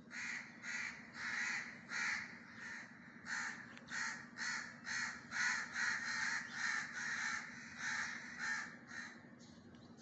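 Crow cawing over and over, about two calls a second, stopping about a second before the end.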